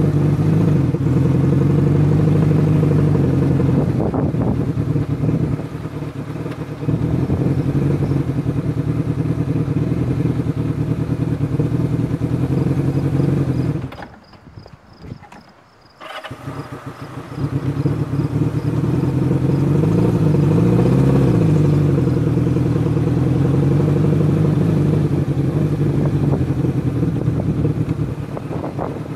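Motorcycle engine running, its pitch rising and falling as the throttle changes. About halfway through, the sound drops away almost entirely for around two seconds, then the engine is heard again.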